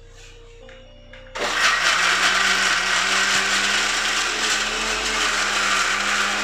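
Electric mixer grinder switched on about a second and a half in, its motor running loudly and steadily as it grinds peeled garlic cloves together with coarsely ground roasted dried chillies, coriander seeds and cumin.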